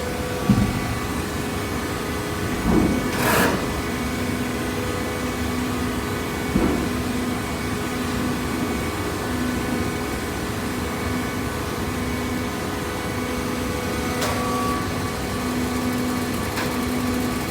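Cardboard baler running: a steady machine hum with a pulsing tone and a few knocks, the loudest about three seconds in.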